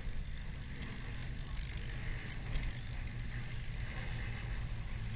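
Formation of aircraft flying overhead, their engines making a steady low drone.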